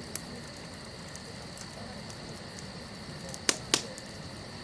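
Campfire wood popping twice in quick succession over a steady high-pitched hum.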